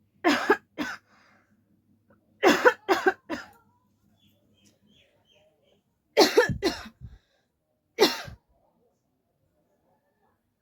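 A person coughing in short bouts: two coughs, then three, then a longer run of coughs, then one last single cough.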